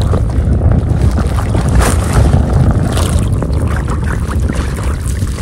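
Wind buffeting the microphone in a heavy, uneven rumble, with water sloshing and a few short splashes.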